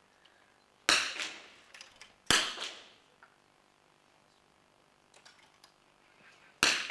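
.22 rimfire smallbore target rifles firing: three sharp shots, one about a second in, the next about a second and a half later, and the last near the end, each ringing off with a reverberant tail. Fainter clicks fall between them.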